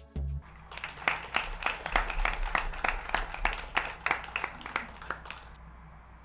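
A closing musical phrase stops just after the start, and then a few people applaud, with irregular hand claps for about five seconds that thin out and give way to a steady faint hiss.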